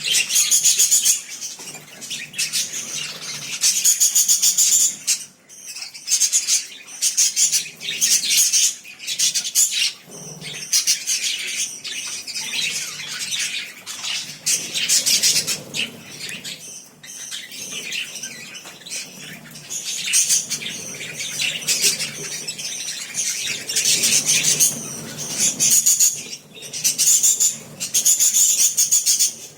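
A group of love birds (small parrots) chattering and chirping shrilly and without a break, in loud surges every few seconds.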